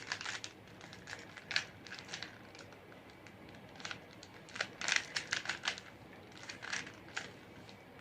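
Plastic Rubik's Cube faces being turned by hand: irregular runs of quick clicks and rattles as the moves of the second-layer left and right algorithms are done, with short pauses between runs and the busiest run about five seconds in.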